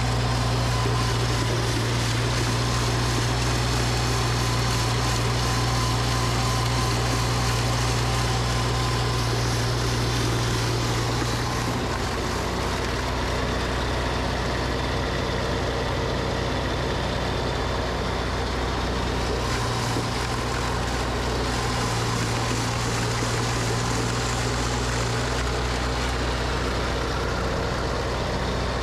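Tractor engine running at a steady speed, turning a snowblower off its PTO as it clears wet, sticky snow.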